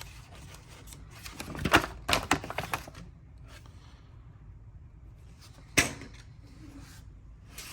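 Handling noise from an unboxed cordless ratchet kit and its case: a quick run of clicks and knocks, then one sharp louder click about six seconds in.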